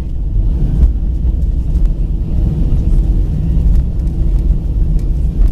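Inside the cabin of an Airbus A319 rolling on the ground, its jet engines run under a steady deep rumble with a faint steady hum. A few faint light clicks sound now and then.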